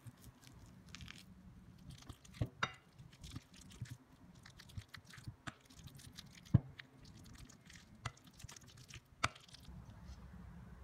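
Bananas being mashed with a plastic potato masher in a glass bowl: soft, faint squishing with scattered sharp knocks as the masher hits the glass, the loudest about six and a half seconds in.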